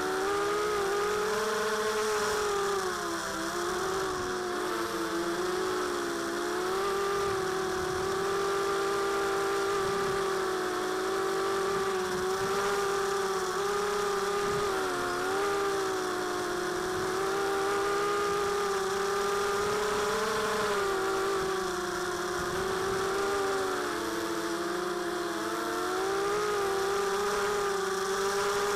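Four Tiger MT1306-10 3100kv brushless motors on a mini quadcopter spinning 5x3 two-blade props, heard from the onboard camera: a steady whine that dips briefly in pitch every few seconds as the throttle changes. The motor bearings are getting real bad, by the owner's account.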